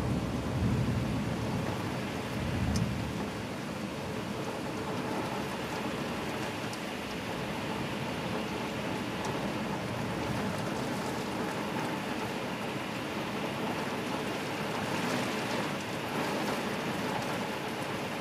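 Heavy cloudburst rain heard from inside a house, a steady hiss of rain on the roof and window. A low thunder rumble at the start fades out within the first three seconds.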